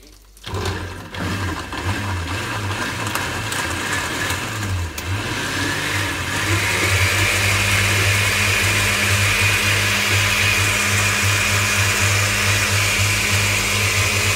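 A vintage Osterizer blender, 30 to 40 years old, blending a soup. It switches on about half a second in and runs steadily, a little louder with a high whine from about six seconds in.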